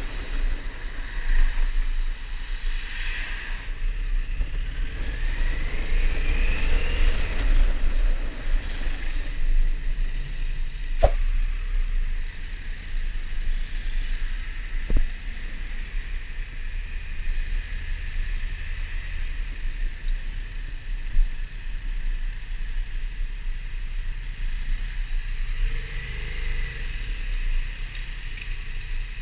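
Yamaha MT-07's parallel-twin engine running at low speed in traffic, with a steady low rumble. A short rising whine comes about six seconds in, and a sharp click about eleven seconds in.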